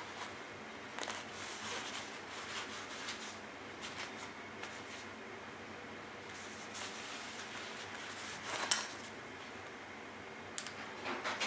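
Quiet handling of a small metal flashlight being clipped onto and pulled off a trouser pocket: faint fabric rustle, with a sharp click about nine seconds in and a few more small clicks near the end.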